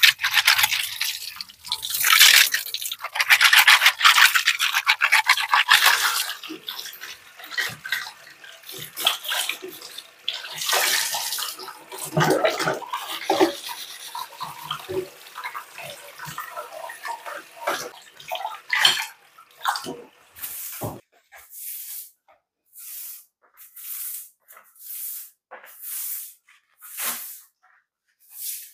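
Tap water running and splashing over chopsticks and dishes in a sink, then a metal pot rinsed and clattering under a kitchen faucet. From about two-thirds of the way in, a straw broom sweeps a tiled floor in short regular strokes, about one a second.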